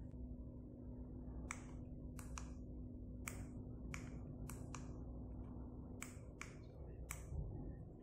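Small 24 V DC linear actuator's motor running with a steady low hum that stops about six seconds in. About ten sharp, irregular clicks sound while the remote control system is operated.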